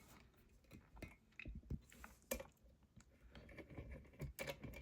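Faint, scattered small clicks and light rattles at irregular times, from a lock and its picking tools being handled.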